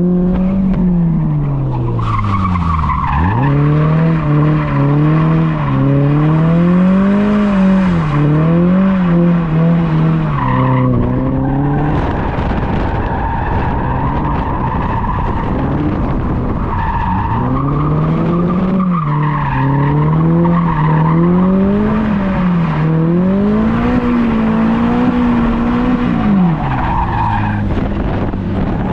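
Toyota GR86's 2.4-litre flat-four engine revving up and down under hard driving while drifting, with the tyres squealing in stretches. The revs drop sharply about three seconds in, then climb again.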